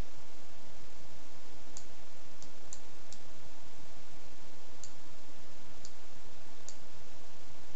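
Computer mouse clicking, about seven sharp clicks spread unevenly over several seconds, over a steady hiss.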